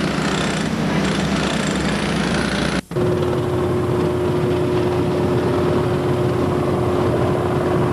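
Power equipment breaking out loose, delaminated concrete, making a steady mechanical drone. It cuts off abruptly about three seconds in and resumes with a steady hum on top.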